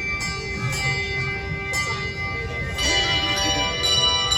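School handbell choir ringing sustained chords. Several bells are struck afresh just under two seconds in, and a new chord begins about three seconds in, with the notes ringing on between strikes.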